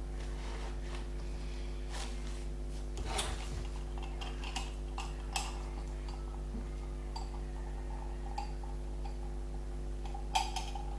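Scattered light clinks and taps of dishes and cutlery being handled, with a small cluster near the end. A steady electrical hum runs underneath.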